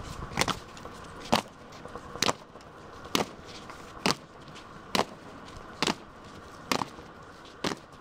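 Boots of an honour guard striking stone paving in unison in a slow ceremonial march, a sharp stamp about once a second.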